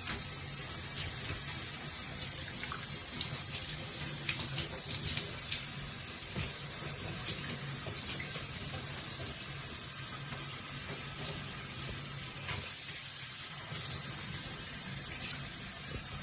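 Water running through a slip-on shower hose and spraying from its head: a steady hiss with scattered small splashes and drips.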